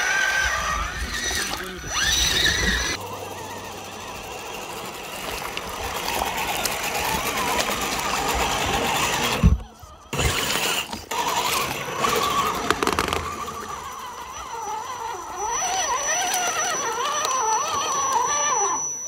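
Scale RC crawler trucks' electric motors and gears whining as they crawl through slushy mud, the pitch rising and falling with the throttle. There is a brief break about halfway through.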